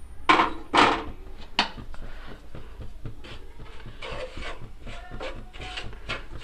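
Wooden spatula scraping and stirring ground spice masala in hot oil in a nonstick frying pan: a series of short scrapes, the two loudest about half a second apart near the start, then a quicker run of lighter strokes.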